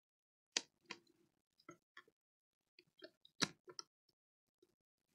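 Scattered light clicks and taps from handling the Chromebook, about a dozen at irregular intervals, with a small cluster about three and a half seconds in.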